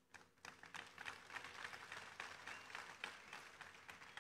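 Large crowd applauding, a faint dense patter of many hands clapping that starts just after the speaker's pause and dies away near the end.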